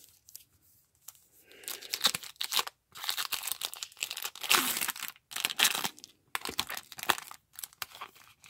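Foil wrapper of a Topps baseball card pack being torn open and crinkled by hand. It is quiet for about the first second and a half, then crackles in bursts with short breaks.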